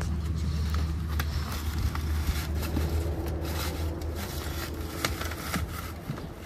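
Paper feed bag crinkling and rustling in a series of short, irregular crackles as a sheep feeds from it, over a steady low rumble.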